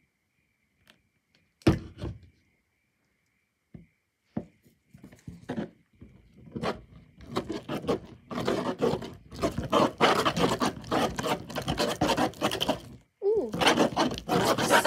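Thick, sticky glue-and-activator slime being stirred and folded with a plastic spatula on a tabletop: dense wet squelching and sticky clicking from about six seconds in, after a single sharp knock near the start.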